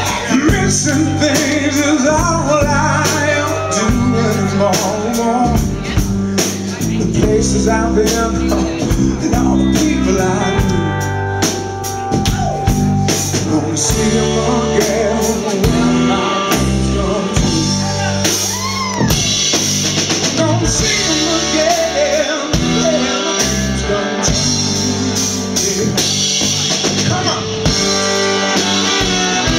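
Live soul band playing loud: drum kit keeping a steady beat under electric guitar, with a singing voice over the top.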